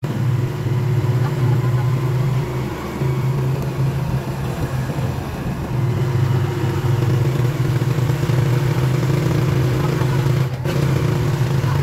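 Motorcycle engine running at a steady cruise while riding along a paved road, with road and wind noise; the engine hum eases a little twice, around three seconds in and again near the middle.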